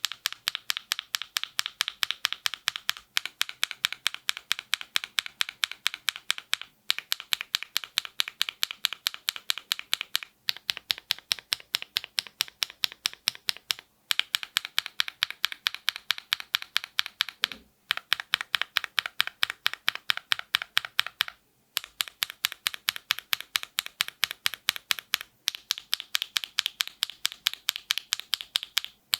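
Mechanical keyboard typed on rapidly, about eight keystrokes a second, in runs of a few seconds broken by brief pauses.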